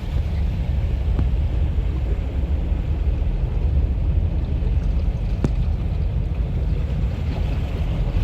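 Heavy rain falling as a steady hiss, under a strong low rumble of wind buffeting the microphone, with a few sharp ticks of drops striking something close by.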